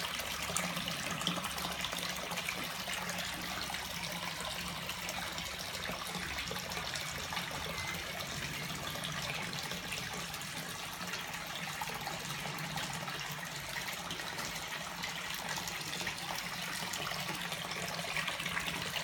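Water splashing and trickling steadily at a crowded koi pond, dense with small splashes, over a low steady hum.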